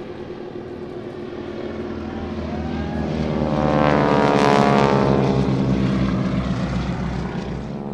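Radial engines and propellers of two Boeing Stearman biplanes in a low crossing pass. The sound grows louder to a peak about four to five seconds in, and the engine pitch drops as they pass each other.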